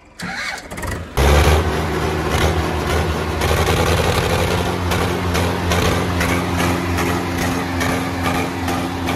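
Diesel tractor engine running loud and close, coming in abruptly about a second in after a few clicks. It then holds a steady, even pitch.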